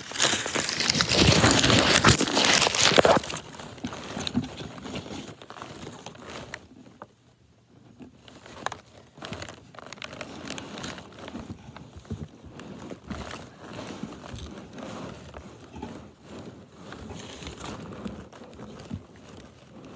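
Cardboard box and plastic wrapping being handled: loud rustling for about the first three seconds, then quieter crinkling and crackling with small scattered clicks.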